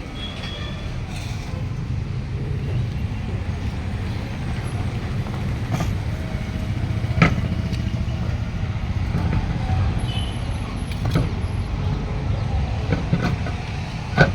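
Workshop sounds of a truck wheel being fitted onto its hub: a steady low mechanical rumble, with a few sharp knocks and clanks, the loudest about seven seconds in.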